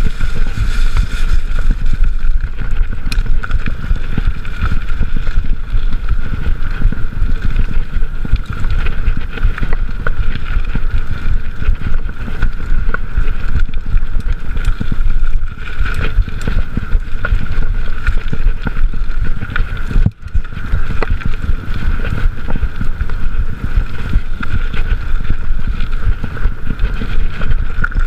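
Mountain bike ridden fast over a rough dirt single-track trail, heard from a chest-mounted camera: wind buffeting the microphone over the rumble and rattle of tyres and frame on uneven ground, with a steady high whine underneath. The noise drops out briefly about two-thirds of the way through.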